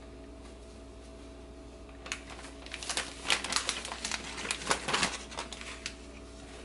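Plastic baggie holding breading crinkling and crackling as raw shrimp are dropped in and the bag is handled. A quick flurry of crackles starts about two seconds in and dies away over about three seconds.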